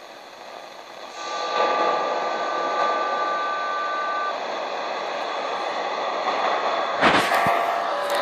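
Shortwave static hissing from a Venturer 2959-2 multiband radio's speaker, with a steady numbers-station tone that begins about a second in and holds for about three seconds. Near the end a sudden loud crackle, then short whistles that step down in pitch.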